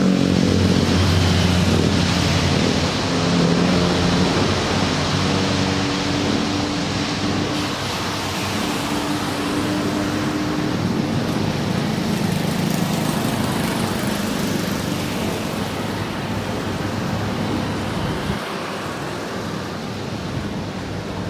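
Jet airliner's engines running as it passes, a loud rushing noise with a low hum that slowly fades, mixed with road traffic.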